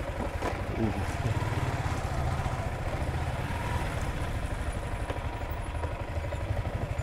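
Yamaha scooter's engine running steadily while it is ridden, a fast, even low throb.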